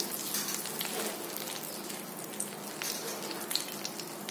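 Bay leaves and dried red chillies sizzling in hot oil in a kadai: a steady frying hiss with scattered small crackles and pops.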